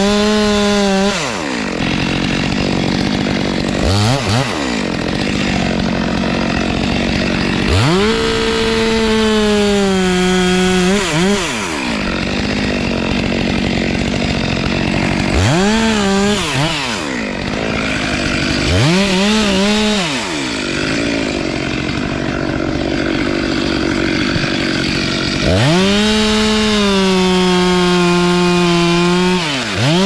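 Stihl chainsaw cutting into the base of a tree trunk, revved to full throttle about six times and dropping back toward idle in between. The longest full-throttle cuts last about three seconds in the middle and four seconds near the end, with shorter blips between.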